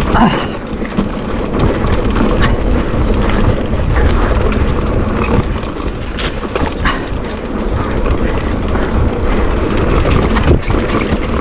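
Mountain bike riding fast down a dirt forest trail: tyres rumbling over the ground and the bike rattling and clattering over roots and bumps, with wind buffeting the microphone. A sharp knock about six seconds in.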